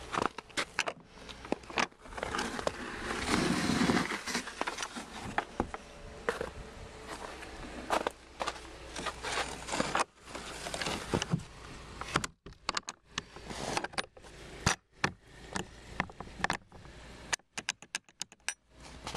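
A hand working the metal latch and slide bolt of a wooden gate: a string of sharp clicks and metal rattles, with a rustling swell a few seconds in and a quick run of clicks near the end.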